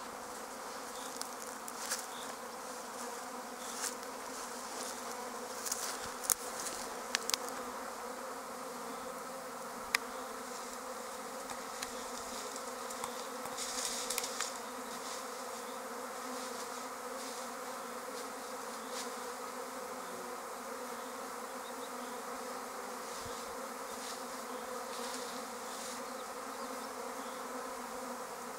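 Honeybee swarm humming steadily in a dense buzz as the newly issued swarm clusters. A few brief sharp clicks sound in the first half.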